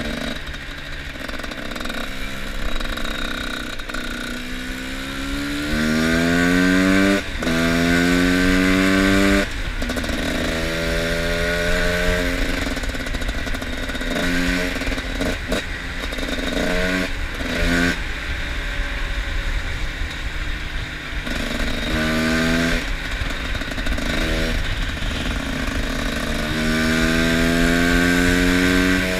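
Two-stroke enduro motorcycle engine being ridden hard: the revs climb again and again, rising in pitch, and drop away between pulls as the throttle closes or the gears change. The longest climbs come about six seconds in and near the end.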